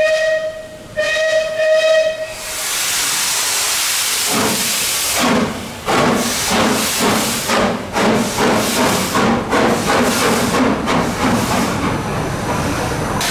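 Steam locomotive starting away: two blasts on its whistle, the first already sounding as the clip begins. A steady hiss of steam follows, then the exhaust starts chuffing at about two to three beats a second.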